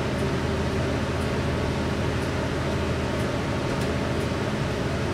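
Steady drone of a city bus's engine and road noise heard inside the passenger cabin, a constant low hum under an even hiss.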